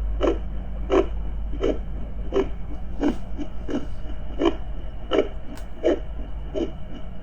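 A woman's heartbeat with fetal Doppler sound, beating evenly at a little under one and a half beats a second, over a steady deep rumble of underwater ambience.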